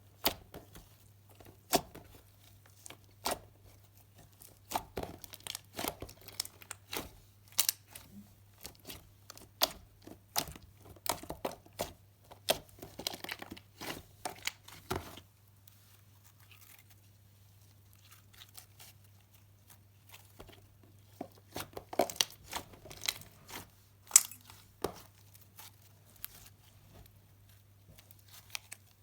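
Slime being squeezed and pressed by hand, giving irregular sharp pops and crackles in two spells with a lull between them. A faint steady low hum runs underneath.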